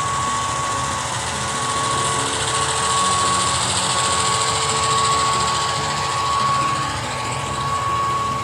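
Rapido SD10 model diesel locomotive running on track at speed: its onboard diesel engine sound plays steadily, with a constant whine and the hiss of the wheels and motor.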